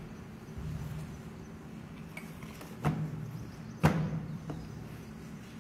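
Two sharp knocks about a second apart, the second louder, as objects are handled close to the microphone, over a low steady hum.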